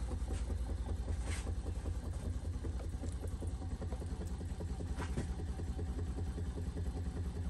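Small homemade two-piston Stirling heat engine running on its leftover heat with the torch taken away, its flywheel spinning and the pistons and linkage clattering in a fast, even rhythm as it coasts down.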